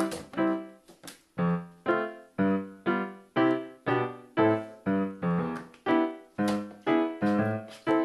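Background piano music: notes or chords struck at a steady pace of about two a second, with a brief pause about a second in.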